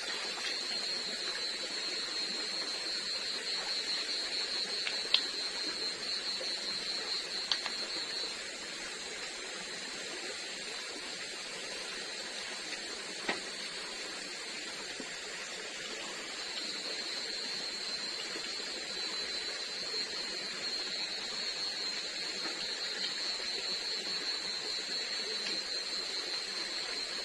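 Tropical forest ambience: a steady high-pitched insect drone, strong at first, fading back in the middle and swelling again over the second half, above an even hiss, with a few faint clicks.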